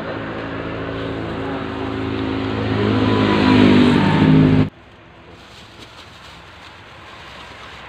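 A motor vehicle engine running close by and growing steadily louder, then cutting off suddenly about four and a half seconds in; after it, quieter background with a few faint clicks.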